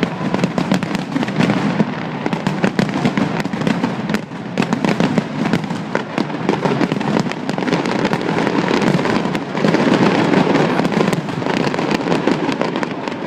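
A fireworks display in full flow: a dense, continuous barrage of bangs and crackling shell bursts over a steady low rumble.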